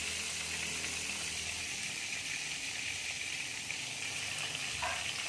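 Whole tilapia frying in hot oil in a pan, a steady sizzle.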